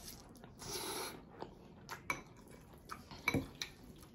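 Metal fork clinking and scraping against a glass bowl of noodles during eating: a short scrape about a second in, then several sharp clicks.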